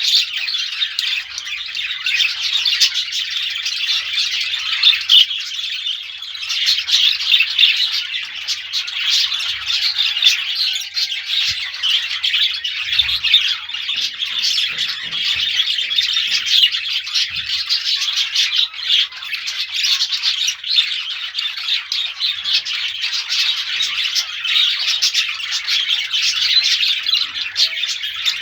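Many small birds chirping and squawking all at once, a dense unbroken chorus of quick high calls.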